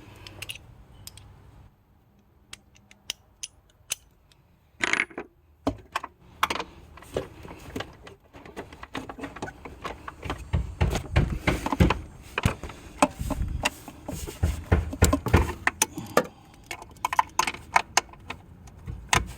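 Socket wrench clicking and clinking on metal while the 12 mm nut on an alternator's power-wire terminal is worked loose. Quiet for the first few seconds, then irregular clicks that come thick and fast in the second half.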